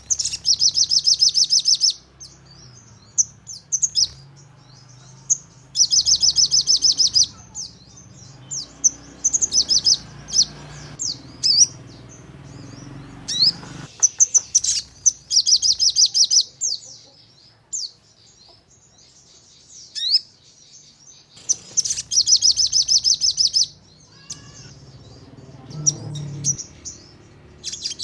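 Sogon bird singing: four loud, rapid trills of about two seconds each, the fast 'nembak' bursts used as a lure call, with sharp single chirps and short whistled notes between them.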